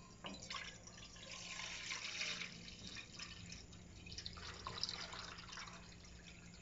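Water poured from a jug into a non-stick cooking pot, splashing steadily as the pot fills.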